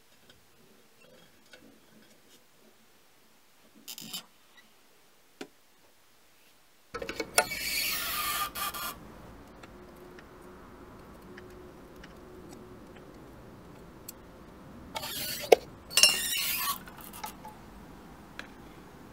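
A few light metal clicks and a short clatter of tongs on the oven's wire mesh rack, then two loud hissing bursts a few seconds apart, the second opening with a sharp click.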